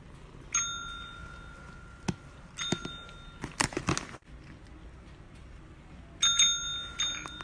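A green service-desk call bell struck by a kitten's paw pressing its plunger. It rings with a clear, fading ding about half a second in, again at about two and a half seconds, then with a quick flurry of strikes, and once more near six seconds.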